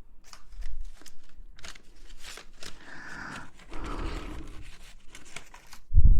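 Close-miked ASMR rustling: irregular crinkling, crackling and scraping right at the microphone, ending in a heavy low bump against the mic.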